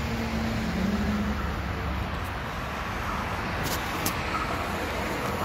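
Steady low rumble of road traffic, with a short engine hum in the first second and two brief clicks a little past halfway.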